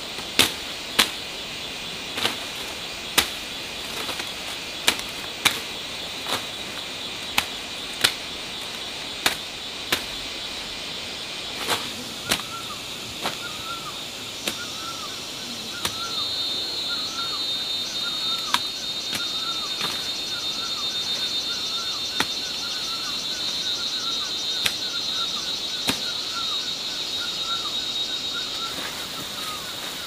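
Sharp knocks, like blows of a tool, at irregular intervals of about a second, loudest in the first half. Under them runs a steady high insect trill, with a short call repeating about twice a second from about halfway.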